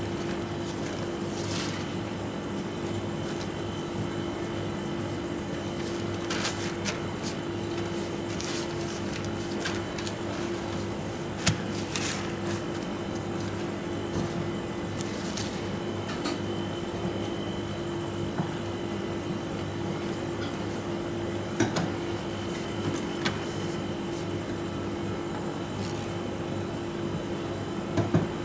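A steady machine hum at one constant pitch, like kitchen refrigeration or air conditioning, with a few light taps and paper rustles as paper towels are pressed over fish fillets on a plastic cutting board.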